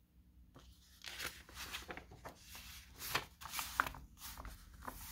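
Paper rustling in a run of short crackles, as sheets are handled.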